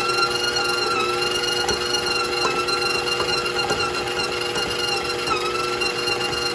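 Stand mixer motor running fast with a dough hook in a small batch of dry dough, a steady high whine that dips briefly in pitch twice. The dough has not yet caught on the hook.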